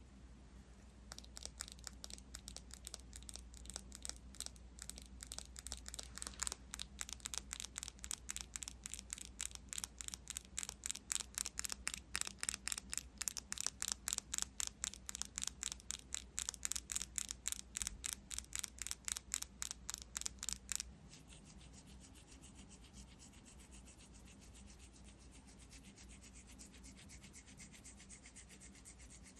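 Rapid, even rubbing strokes of a skincare tool across the microphone, about three to four strokes a second. They stop abruptly about 21 seconds in and give way to softer, continuous rubbing.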